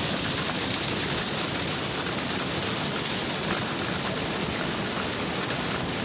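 A thin waterfall spilling down a rock face and splashing onto stones: a steady rush of falling water.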